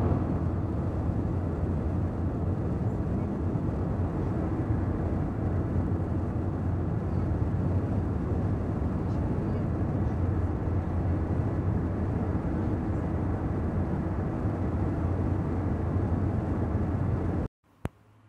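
Steady low rumble of road and engine noise heard from inside a moving car. It cuts off suddenly near the end, followed by a single sharp click and quiet room tone.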